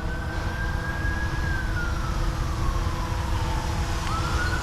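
Whine of a small drone's electric motors and propellers. The pitch holds high, slides slowly down, then jumps back up about four seconds in as the throttle changes. Strong wind rumbles on the microphone underneath.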